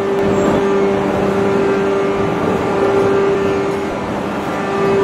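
Large hydraulic open-die forging press running while it squeezes a red-hot steel shaft: a steady mechanical hum with a constant droning tone over even machine noise.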